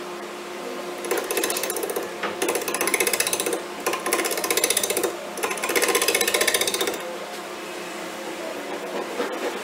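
Wood lathe running steadily, with four bursts of a tool or abrasive pressed against the spinning walnut, each a rough, rapid pulsing scrape lasting about a second.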